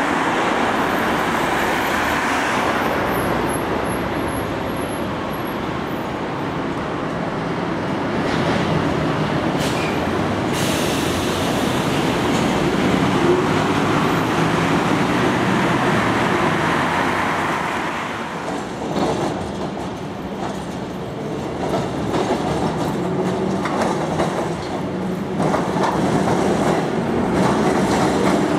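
Melbourne W-class tram running along street track, its steel wheels rolling over the rails. The sound drops about two-thirds of the way through and builds again as another tram approaches.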